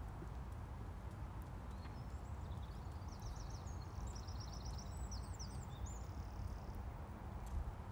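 Faint hoofbeats of a horse being ridden on the arena's soft surface under a steady low rumble, with a small bird singing a quick run of high repeated notes in the middle.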